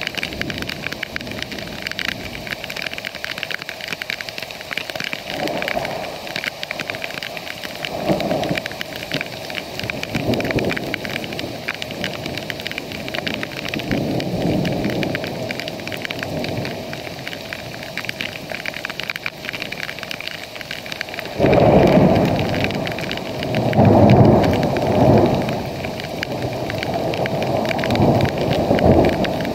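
Heavy rain falling steadily, with deep rumbling swells every few seconds that grow loudest about two-thirds of the way in.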